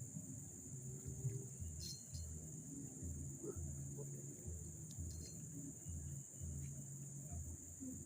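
Insects chirring in a steady high-pitched drone, over a low uneven rumble.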